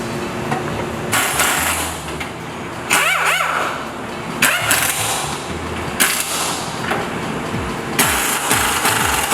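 Power tool spinning up in short bursts, about five in all, over a steady low hum.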